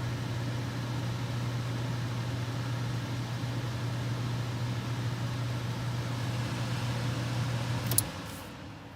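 Furnace running: a steady hum with a vibration that is suspected to come from a loose plate in the heat exchanger or the coil. Near the end comes a sharp knock, and the sound then falls away.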